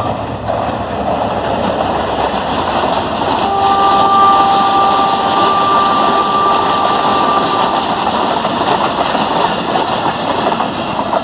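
Diesel-hauled passenger train passing at speed: a steady rumble and clatter of coach wheels on the rails, growing louder as the coaches go by. For about four seconds in the middle a steady high tone sounds over it.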